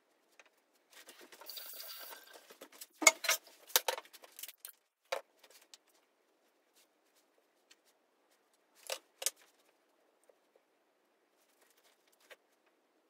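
Small handling sounds of a plastic cream-cheese tub with a foil lid: a brief crinkly rustle, then a cluster of sharp clicks and taps of plastic on the countertop, and two more clicks about nine seconds in.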